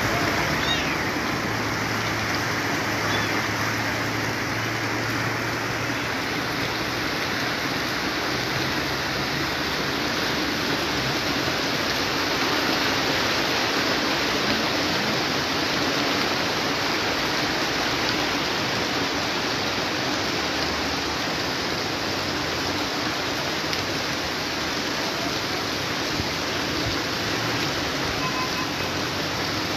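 Floodwater rushing steadily across a flooded street, a continuous churning wash of fast-flowing water.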